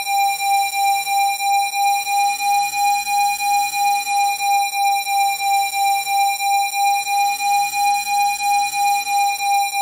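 Steady electronic test tone at 802 Hz, a Rife frequency, pulsing in loudness about three times a second, with faint tones gliding up and down beneath it.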